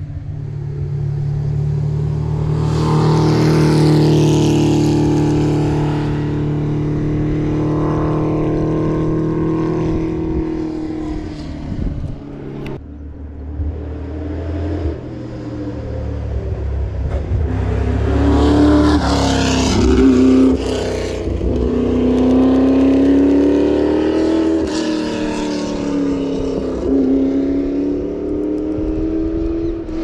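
Classic rally cars' engines running as they drive past one after another: one car passes over roughly the first twelve seconds, then another from about thirteen seconds in, its engine note rising and falling with the throttle.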